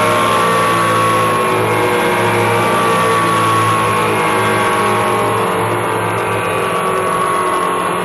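Steady machine hum with a whine that slowly falls in pitch, easing off slightly near the end.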